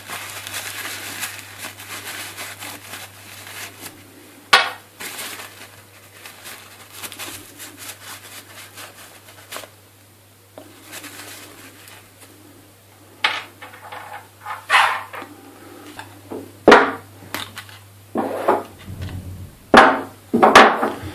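Kitchen paper rustling while the skate's axles and screws are wiped clean, then a series of sharp clacks and clinks as the small metal parts are handled and set down on a table, coming more often near the end.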